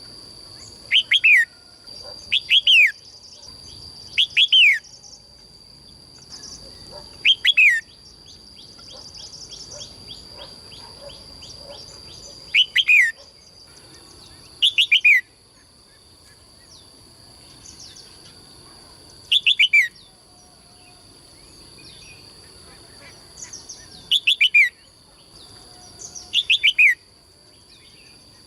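A songbird calling: loud, short whistled notes that slide downward, in pairs or threes every two to three seconds, with softer twittering between them.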